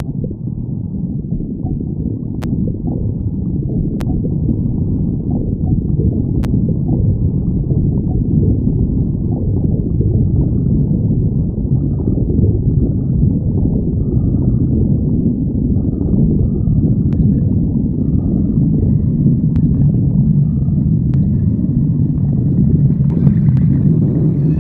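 Human stomach growling, heard up close: a continuous low rumbling gurgle that grows a little louder over the first few seconds.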